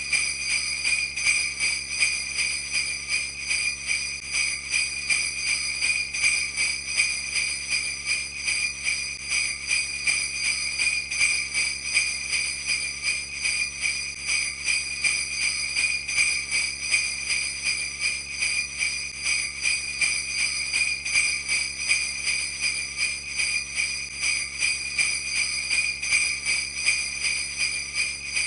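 Sleigh bells shaking continuously in a steady rhythm: a bright, unbroken jingling with no melody over it.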